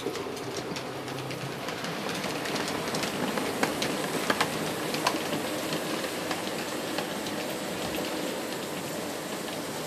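Märklin HO scale model trains running on the layout's track: a steady rattling rolling noise with scattered light clicks, a few sharper clicks about midway.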